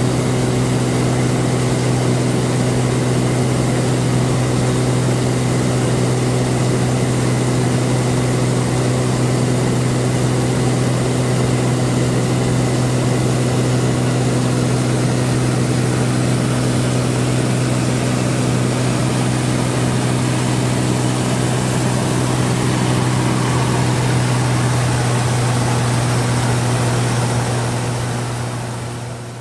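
A loud, steady engine drone with a strong low hum, fading out in the last couple of seconds.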